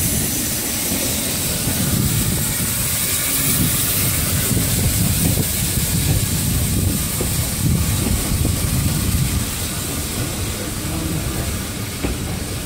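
Steam-hauled train of coaches rolling slowly past along the platform, wheels rumbling on the rails, with steam hissing from the locomotive.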